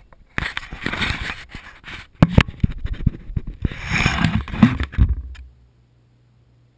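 Handling noise on a GoPro's own microphone: rubbing and scraping with many sharp knocks and clicks as the camera is gripped and set down. It stops suddenly about five and a half seconds in, leaving only a faint steady hum.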